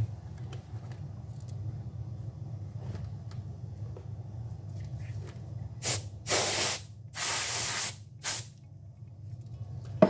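Can of compressed air sprayed in four hissing blasts, two short and two longer, starting about six seconds in, blowing dust out of an opened laptop.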